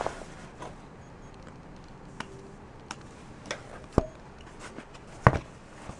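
Handling noise as a quilted vinyl seat cover is shifted and turned on a sewing-machine table: scattered light clicks and rustles, with two dull thumps about four and five seconds in, the second the loudest.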